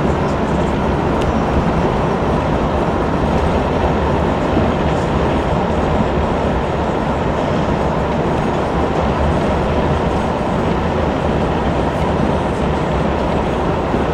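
Steady, loud rumble and road noise of a moving vehicle, even throughout.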